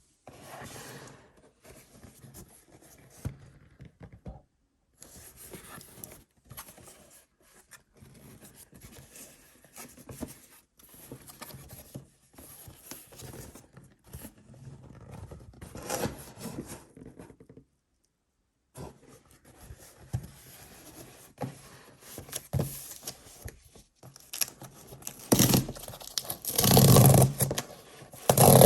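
Packaging being handled and opened by hand: on-and-off rustling, scraping and rubbing, with brief pauses, getting louder and busier near the end.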